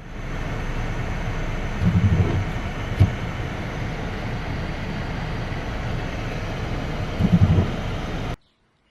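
Steady vehicle and road noise, with a few short low bumps, cutting off abruptly near the end.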